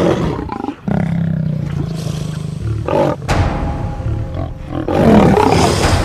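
Tiger roar sound effect over dramatic intro music, with a sharp impact hit about three seconds in and another loud roar near the end.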